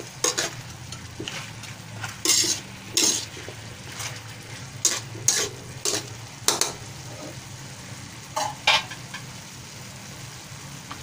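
A spatula scrapes and knocks against an aluminium wok as chicken and vegetables are stirred, in irregular strokes over a low steady hum. The stirring stops about nine seconds in.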